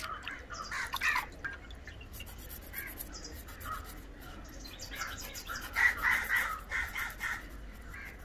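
Crows cawing repeatedly, the loudest calls about a second in and around six seconds in, over the short scraping strokes of a knife taking the scales off a fish.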